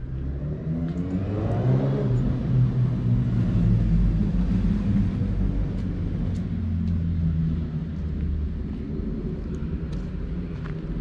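A car engine running close by, growing louder about two seconds in and then slowly easing off as the vehicle moves past.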